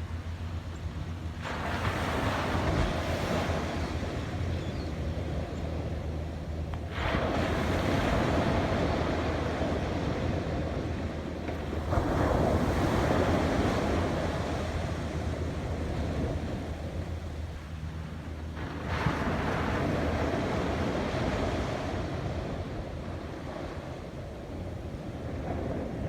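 Atlantic Ocean surf: waves breaking and washing up the beach, four crashes some five to seven seconds apart, each one surging in suddenly and then fading.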